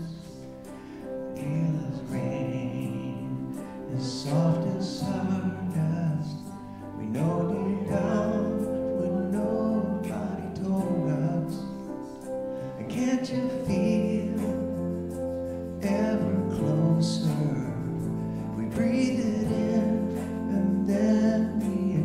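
A man singing, accompanying himself with held chords on a Yamaha MM8 synthesizer keyboard.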